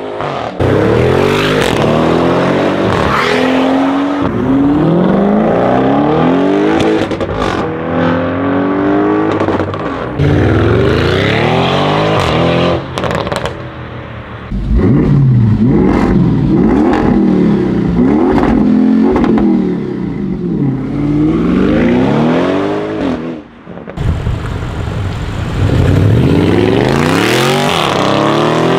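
Audi RS6 engine and exhaust revving and accelerating hard over and over, the pitch repeatedly climbing and dropping, with a few sharp exhaust crackles in the middle.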